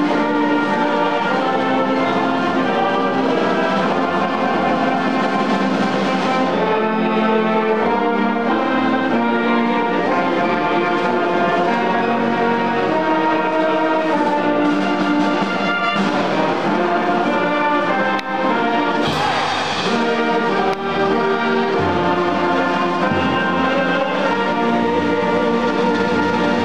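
A live university show band of brass and saxophones playing a full, sustained tune together, with a brief crash about two-thirds of the way through.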